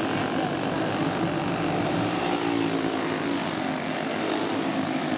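Several flathead go-kart engines racing together, a steady buzzing drone whose pitch shifts as the karts accelerate and pass.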